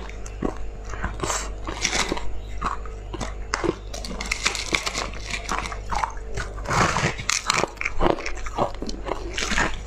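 Biting and crunching through a block of frozen purple-coloured crushed ice, picked up close on a clip-on microphone: a dense run of irregular crisp crunches, busiest about seven to eight seconds in. A steady low hum runs underneath.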